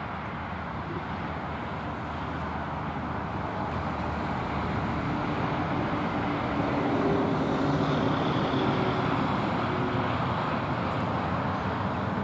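Road traffic: a vehicle engine and tyre noise passing by, growing louder to its peak about two-thirds of the way through.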